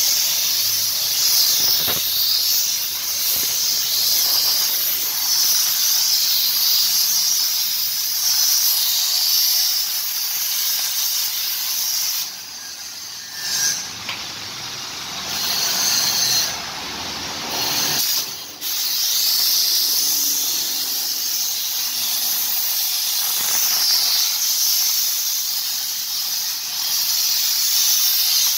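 Steam cleaner gun jetting pressurised steam in a steady loud hiss, dropping away briefly a few times about halfway through.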